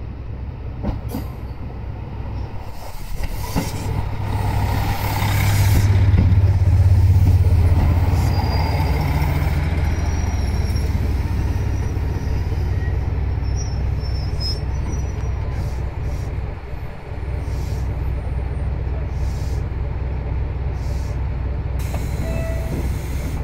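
KiHa 200 series two-car diesel multiple unit pulling into a station and stopping: its diesel engines drone low throughout, loudest about five to nine seconds in as the cars draw alongside. Short high brake squeals come about ten to fifteen seconds in as it slows, and the engines keep running after it stops.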